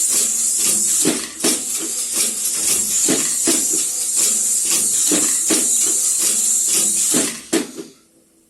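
Automatic horizontal-blind assembly machine running, clacking about twice a second over a steady high hiss as it feeds aluminium slats into the ladder cord. It stops near the end with one last clack.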